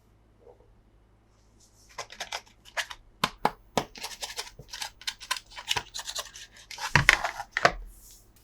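Toy packaging being handled and opened: a rapid run of sharp clicks, scrapes and crinkles starting about two seconds in, with a heavier knock about seven seconds in.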